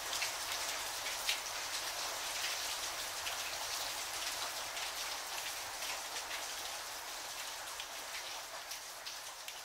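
Steady rain, with many separate drops ticking, slowly fading out.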